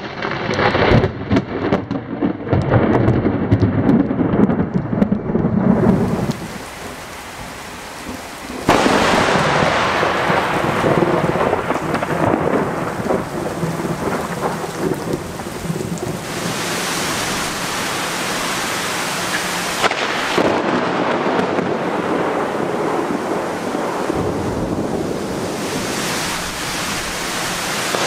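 Thunder from close lightning strikes with rain. For the first six seconds a crackling, rumbling peal; after a sudden cut, heavy rain and more thunder.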